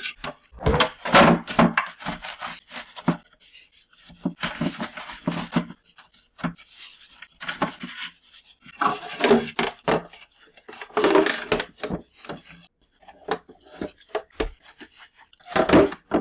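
A fridge shelf being scrubbed with a soapy sponge in the sink: bursts of rubbing strokes separated by short pauses, with some knocks as the shelf is handled.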